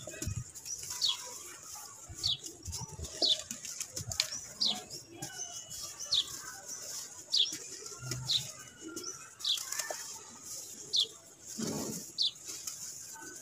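Hands crushing lumps of dry red dirt into powder: soft gritty crumbling and light thuds, with a larger pour of powder near the end. A bird chirps repeatedly in the background, a short falling chirp about once a second.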